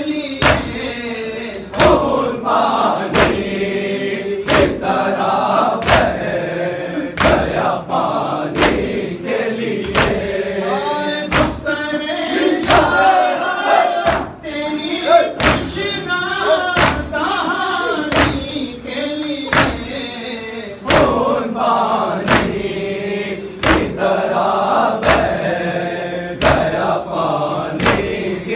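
Shia mourners' matam: a group of men chanting a noha lament in unison while beating their chests with their palms. The slaps fall in a steady beat, a little more than one a second.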